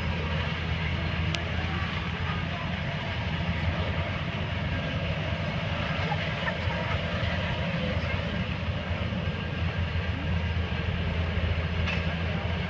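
Cog Railway steam locomotive working up the mountain grade, pushing its coach: a steady low rumble with no clear beat. A single sharp click about a second and a half in.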